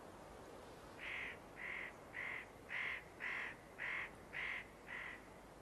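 Spotted nutcracker calling: a series of eight short, evenly spaced calls, about two a second, beginning about a second in.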